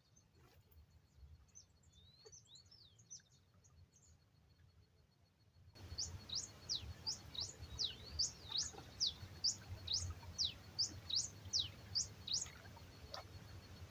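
A bird calling outdoors: faint scattered chirps at first, then from about halfway in a quick run of loud, high, sliding notes, roughly two a second, that stops shortly before the end.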